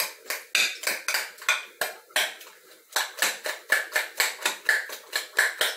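A utensil clinking and scraping against a metal bowl about four times a second, beating a wet mixture of cooked jiló and eggs by hand.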